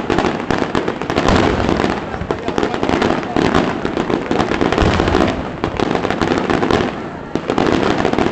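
Daytime aerial firecrackers exploding overhead in a dense, rapid barrage of sharp cracks and bangs, easing briefly about seven seconds in.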